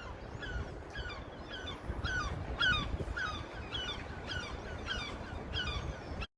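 A bird giving the same short chirping call over and over, about twice a second, over a low outdoor rumble; the sound cuts off suddenly near the end.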